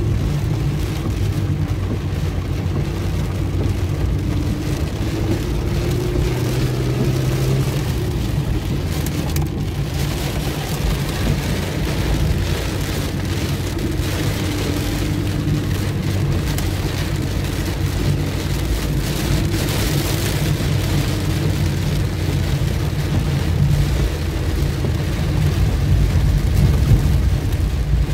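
Heavy rain falling on a car's windscreen and roof, heard from inside the cabin over the steady hum of the car's engine and tyres on the wet road.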